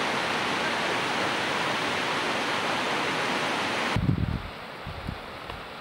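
Stream water rushing steadily in a rocky canyon. About four seconds in it cuts off suddenly, leaving a quieter hiss with a few irregular low thuds.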